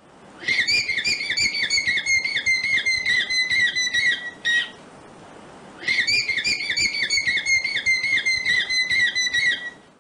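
An animal's high whistled call: short notes repeated quickly, about three a second, in two runs of about four seconds with a brief pause between them.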